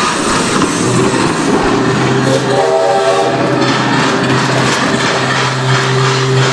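Music played over a sound system for a dance routine, with long held horn-like chords coming in about a second in and again about two seconds in over a steady rhythmic clatter, like a train sound effect worked into the track.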